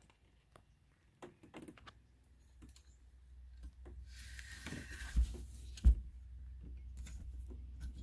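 Light metal clicks and taps as a Stanley No. 55 combination plane is handled and turned over, its cast fences, rods and thumbscrews knocking together, with a brief rustle and two dull thumps between about four and six seconds in.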